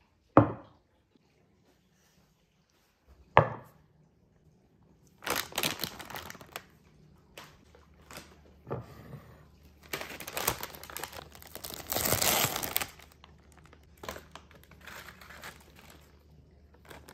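Two sharp knocks of glassware set down on a wooden cutting board, then the plastic wrapper of a family-size Oreo package crinkling and tearing as it is opened and the cookie tray pulled out, in irregular bursts that are loudest about two-thirds of the way through.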